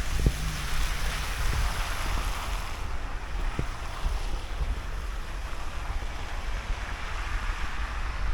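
Storm wind buffeting the microphone as a steady rumbling rush, with a few faint knocks.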